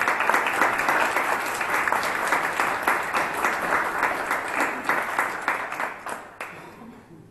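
Audience applauding with dense clapping that thins out and fades away near the end.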